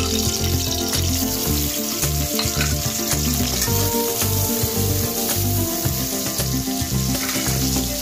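Sliced onions sizzling in hot oil in a kadai, with a spatula stirring and scraping them against the pan, over background music.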